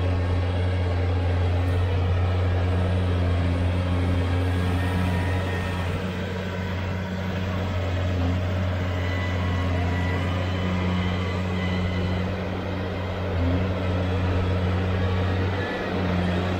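New Holland tractor's diesel engine running steadily under load as it pulls a mounted plough through the soil, a constant low hum.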